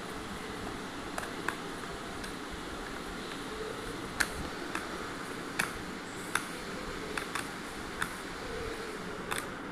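Irregular small, sharp clicks and snaps from cutting and handling the plastic and wire parts of a Bluetooth speaker being taken apart, about a dozen in all, over a steady background hiss.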